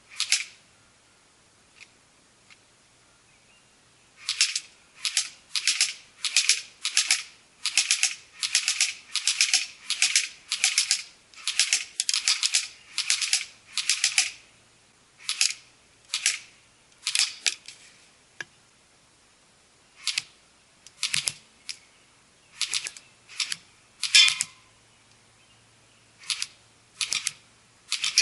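AK-47 Kalashnikov airsoft rifle firing short bursts of rapid sharp shots, each burst about half a second long, many in quick succession at first and then more spread out with pauses.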